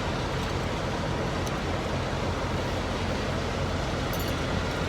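Steady low rumble of motor-vehicle noise with an even hum and no change in level.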